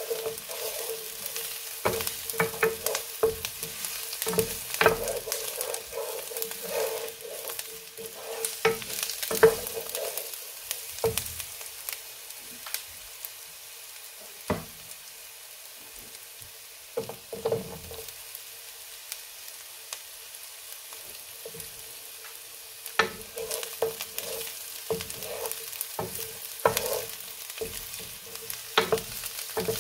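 Wooden spatula scraping and stirring chopped onion and sliced garlic around a ceramic-coated frying pan, over a gentle steady sizzle of oil on low heat. The scraping thins out for several seconds in the middle, then picks up again.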